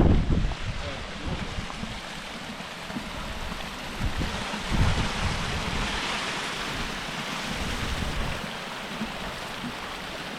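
Steady rushing of a stream, with gusts of wind buffeting the microphone as low rumbles at the start and again about five seconds in.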